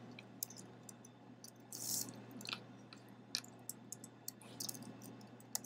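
Computer keyboard being typed on: a scatter of light, irregular key clicks, with a brief soft hiss about two seconds in.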